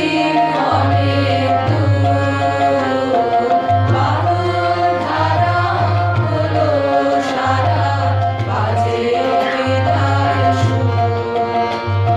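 A chorus singing with tabla accompaniment, over steady held tones from a sustaining instrument.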